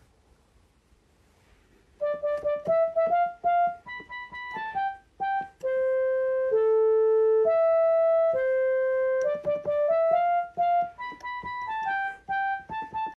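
Yamaha PSS portable electronic keyboard playing a simple melody one note at a time, starting about two seconds in, with some notes held longer.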